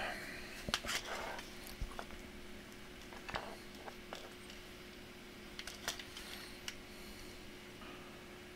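Light, scattered clicks and taps of laptop parts being handled on a bench, over a steady low electrical hum.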